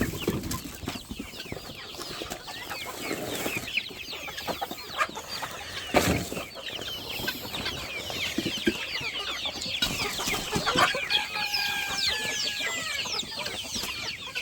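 A flock of chickens clucking and calling over one another, with many short high calls overlapping throughout. There is a sharp knock about six seconds in, and one bird gives a longer, held call two-thirds of the way through.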